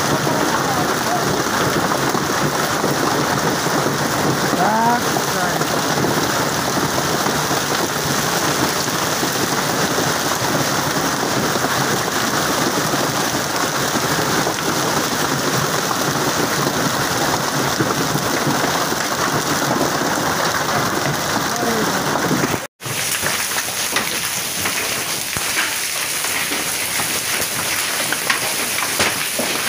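Heavy rain mixed with hail pelting down, a dense steady hiss of drops and hailstones hitting the ground. It breaks off for an instant about 23 seconds in and resumes with individual stone impacts standing out more.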